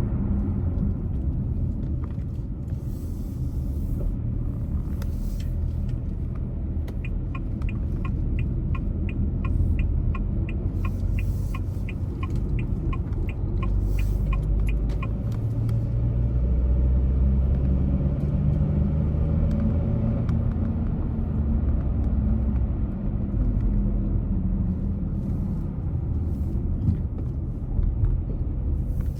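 Steady low rumble of a car driving, heard from inside the cabin. Near the middle, a turn-signal indicator ticks evenly, about two to three ticks a second, for around eight seconds.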